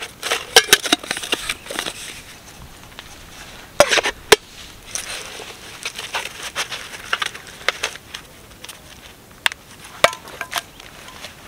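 Handling noise of camp gear being packed: a plastic bag crinkling as it is stuffed into a metal mug, with scattered clicks and a few sharp knocks of the mug and bottles, two close together about four seconds in and one more near the end.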